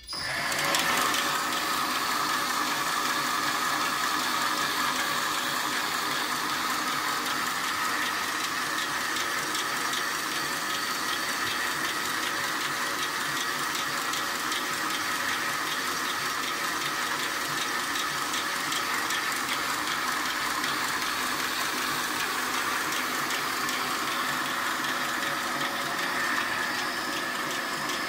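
Stainless steel wire circular knitting machine, used to make scourer mesh, starting up and running steadily with a fast, even mechanical clatter.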